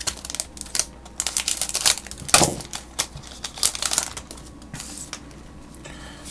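Scissors snipping open a foil trading-card booster pack, then the wrapper crinkling as the cards are pulled out. A run of sharp clicks and crackles, loudest about two and a half seconds in, that dies down near the end.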